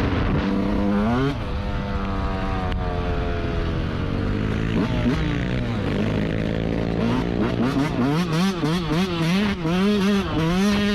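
Yamaha YZ125 two-stroke dirt bike engine running under riding, revving up once near the start, then holding lower revs. In the last few seconds the throttle is worked in quick rises and falls, about twice a second.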